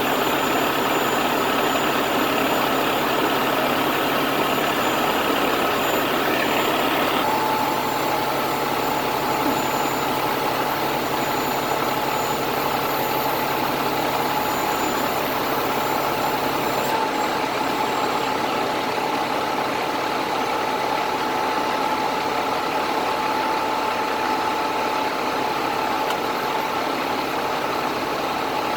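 Crane truck's engine running steadily, with a thin steady whine that comes in about a quarter of the way through.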